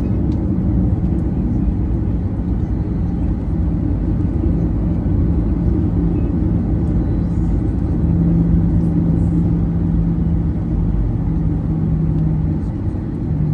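Cabin noise of a Boeing 737-800 taxiing: a steady low rumble from the CFM56-7B engines at taxi power and the wheels rolling on the taxiway, with a steady hum running through it that swells a little about eight seconds in.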